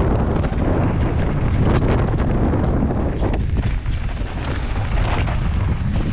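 Wind buffeting the microphone while a mountain bike runs fast down a dry dirt singletrack, with a steady low rumble from the tyres on the trail and scattered knocks and rattles as the bike goes over bumps.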